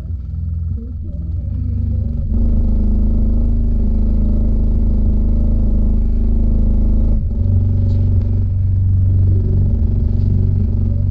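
Memphis LVS 15 subwoofer playing loud, deep bass with its cone moving hard. The bass gets louder about two seconds in and changes note around seven seconds.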